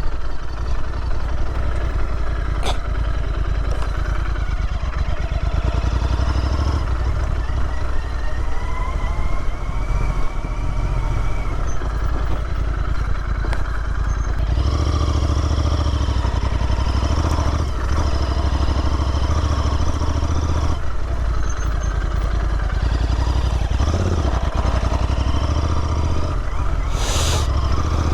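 Royal Enfield Interceptor 650's parallel-twin engine running as the motorcycle is ridden along a dirt trail, its note changing about halfway through.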